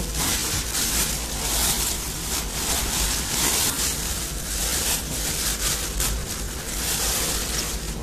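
Clothes being pushed by hand into the drum of a coin-operated tumble dryer: fabric rustling and rubbing in repeated swells, over a steady low hum.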